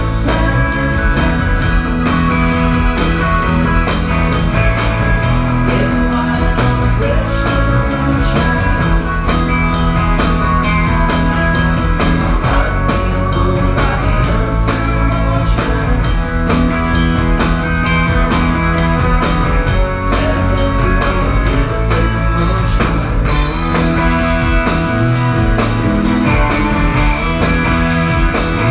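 A live rock band playing a song, with electric guitars, bass and a drum kit keeping a steady beat.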